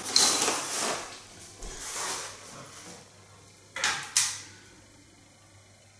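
Gear being handled as a tripod is pulled free of a backpack's side straps: rustling of pack fabric and straps, then two short, sharp clatters about four seconds in, followed by quiet.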